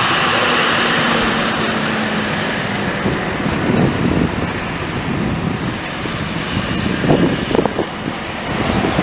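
Diesel engine of a Coach USA motor coach running as it drives away, over general traffic noise. A steady hum is heard for the first couple of seconds, then fades into uneven rumbling.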